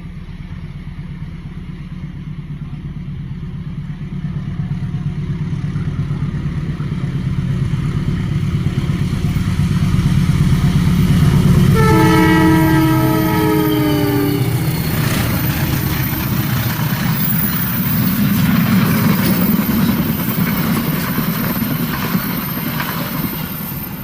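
Indonesian CC 203 diesel-electric locomotive hauling a passenger train past: its engine rumble builds as it approaches, and about twelve seconds in it sounds its multi-tone horn for about two and a half seconds, the pitch dropping slightly as it passes. The rushing and rolling noise of the coaches going by follows.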